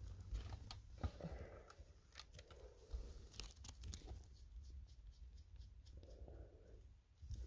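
Faint scattered clicks and rustling, typical of hands working with small parts, over a low steady rumble.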